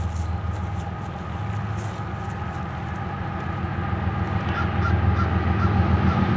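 Two GE ES44AC Gevo diesel-electric locomotives with V12 engines running under power, a deep rumble growing steadily louder as the train approaches at track speed.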